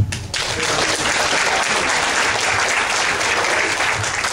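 Guests applauding, a steady burst of clapping that sets in just after the thank-you.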